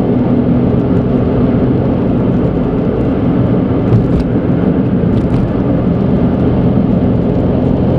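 Suzuki Alto Turbo RS (HA36S), with its 660 cc turbocharged three-cylinder engine, cruising at a steady speed, heard inside the cabin as a steady engine hum over tyre and road noise. A couple of faint ticks sound around the middle.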